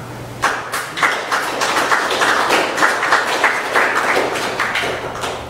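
A small group of people applauding, the clapping starting about half a second in and dying away near the end.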